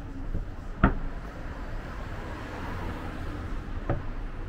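City street ambience: a steady low rumble of traffic, with a sharp knock about a second in and two fainter ones near the end.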